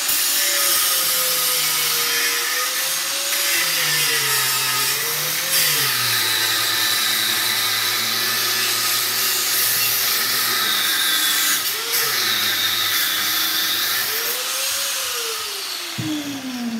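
Electric angle grinder grinding through one side of a fan motor's metal housing, its whine dipping and rising as the disc bites. Near the end it is switched off and winds down, falling steadily in pitch.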